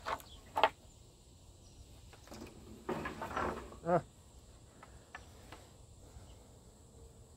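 Strips of oak tongue-and-groove flooring clacking against each other as they are picked up and handled, a few sharp wooden knocks with quiet gaps between.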